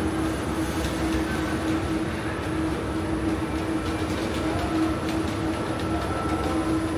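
Steady mechanical rumble with a constant low hum and a few faint clicks.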